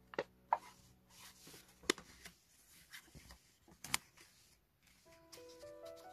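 Paper being folded and creased by hand: soft rustling broken by about four sharp crackles as the folds are pressed flat. Background music of held notes comes in about five seconds in.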